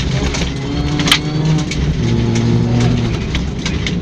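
Rally car engine running hard under load, its pitch shifting about two seconds in, with sharp clicks and clatter on top and one louder knock about a second in, typical of gravel hitting the car on a forest stage.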